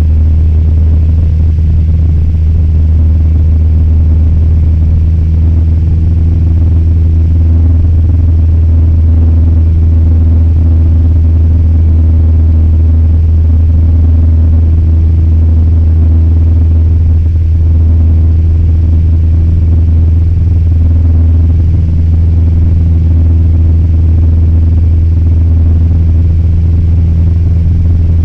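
Cessna 172's piston engine and propeller running steadily in flight, heard inside the cockpit as a constant low drone with several stacked tones and no change in pitch.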